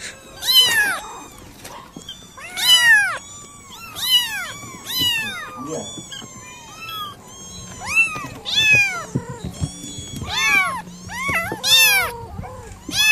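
White kitten meowing repeatedly, high-pitched calls that rise and fall in pitch, about one a second.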